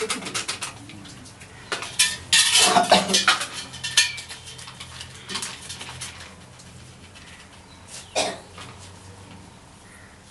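Metal puja vessels clinking and clattering, busiest in the first four seconds, with single sharp clinks about five and eight seconds in.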